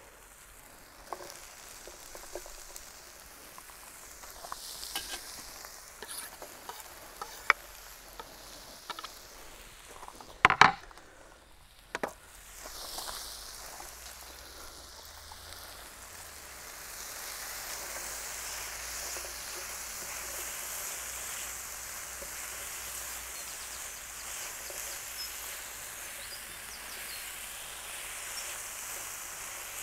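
Diced chicken and onion sizzling in a hot pan on high heat to brown the chicken, with a few sharp clicks of tongs against the pan, the loudest about ten and a half seconds in. The sizzle grows steadier and louder from about seventeen seconds in.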